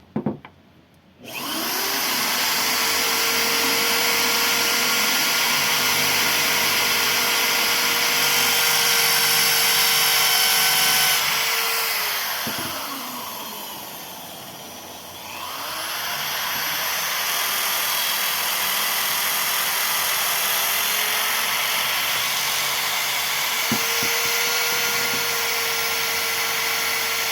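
Electric drill running as it bores the small finger holes in a cane whistle tube. It starts about a second in, slows and drops in level near the middle, then speeds up and runs steadily again.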